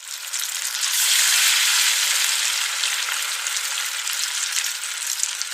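Food frying in hot oil in a pan: a steady sizzle dotted with small crackles and pops, swelling up within the first second.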